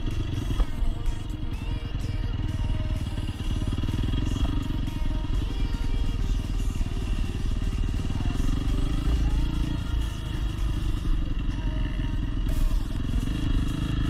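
Dirt bike engine running as the bike is ridden, a dense steady rumble throughout.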